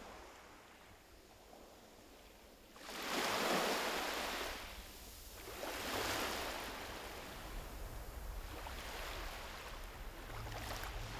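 Waves washing up on a shallow shore, two louder swells about three and six seconds in, with a low wind rumble on the microphone.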